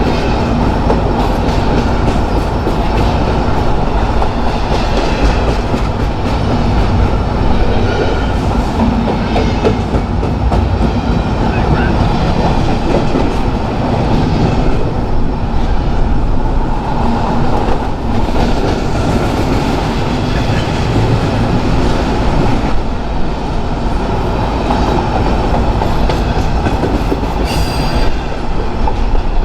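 Railcars rolling past close by: a loud, steady rumble and clatter of steel wheels on the rails.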